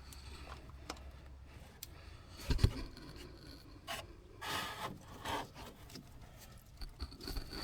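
Hand tool work on the underside of a side-by-side: rubbing and scraping with scattered clicks, one heavy knock about two and a half seconds in, and a rougher scraping stretch around the middle.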